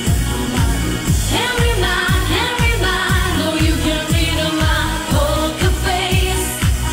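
Pop dance music with singing: a steady kick-drum beat of about two strokes a second, with a sung vocal line coming in about a second in and fading out near the end.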